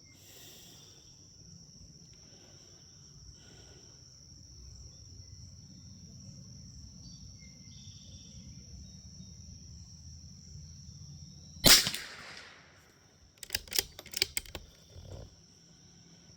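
A single .22 LR rifle shot with a short echoing tail, followed about a second and a half later by a quick run of sharp metallic clicks as the bolt is worked to eject the case and chamber the next round.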